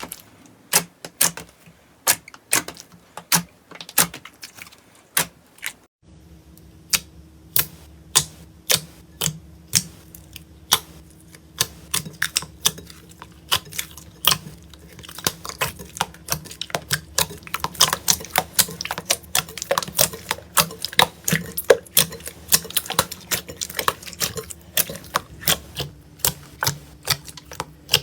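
Slime being squeezed and poked, giving a run of sharp clicks and pops, a couple a second at first and much denser in the second half. A faint steady hum comes in about six seconds in.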